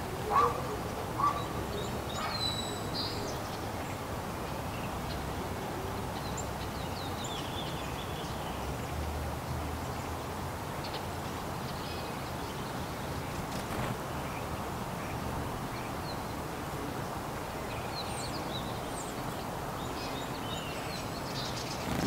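Wild birds calling over a steady outdoor background hiss: two louder short calls in the first second or so, then scattered faint, high chirps.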